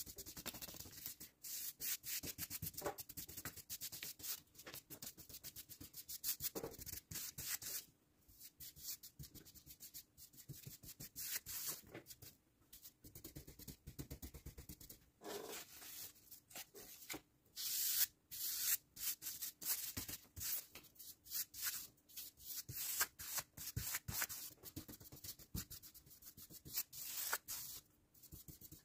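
Hand sanding with quick, short rubbing strokes, in runs broken by several brief pauses.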